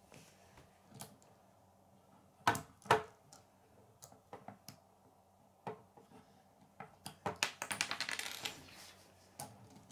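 Hard plastic K'nex pieces clicking and clattering as they are handled and fitted together. There are two sharp knocks about two and a half seconds in, and a quick run of rattling clicks near the end.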